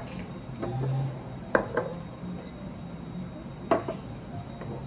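Dishes and tableware knocking against a table: a couple of sharp clinks about a second and a half in, and another near four seconds.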